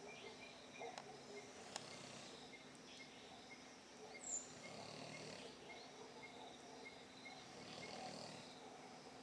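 A person snoring faintly inside a wooden cabin, heard as slow, low swells of breath, with insects chirping steadily at about four chirps a second. A short high chirp about halfway through is the loudest sound.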